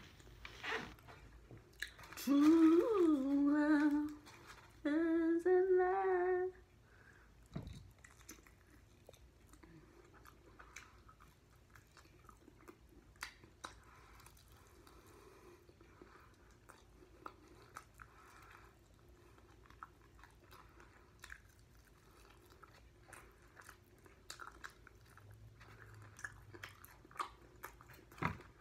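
A woman hums two short phrases a couple of seconds in, then chews and bites into chicken wings close to the microphone: soft irregular smacks and crunches.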